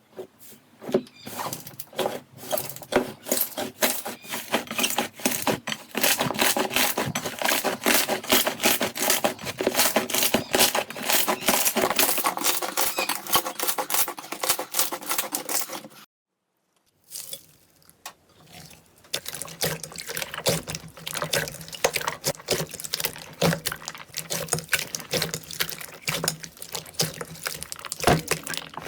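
Slime being squeezed, pressed and poked by hand: a dense run of quick wet clicks and crackling pops. It breaks off about sixteen seconds in, and after a second's pause a new batch of slime starts crackling again.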